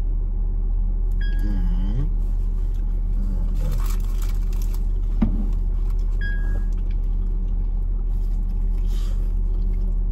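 Steady low rumble of a car engine idling, heard from inside the cabin, with one sharp click about five seconds in.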